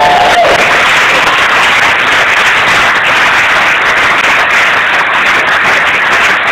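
A room full of people applauding, a steady dense clapping. The band's last held note cuts off about half a second in.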